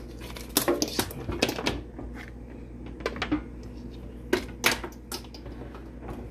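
Electric cooking pot being handled: sharp clicks, knocks and clatters against the pot, a cluster of them in the first couple of seconds, then a few more scattered single knocks.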